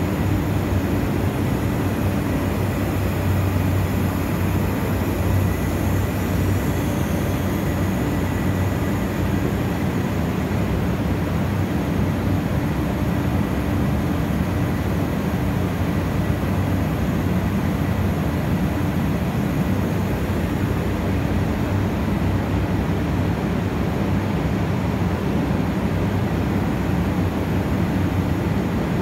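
Station service air compressors running steadily: an even, unbroken machine noise, deep in pitch, with no change in pace.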